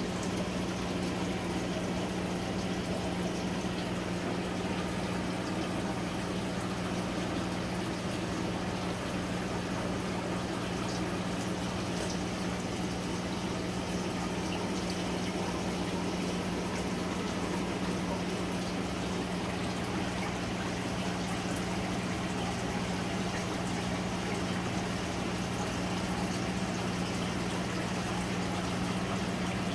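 Steady bubbling and trickling water from aquarium sponge filters run by airline, over a constant low hum.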